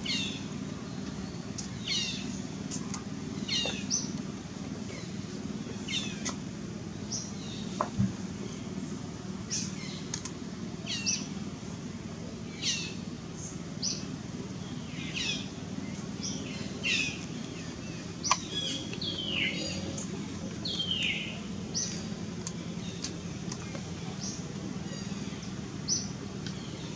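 Short, high-pitched animal calls that fall in pitch, repeated about once every second or so, over a steady low drone.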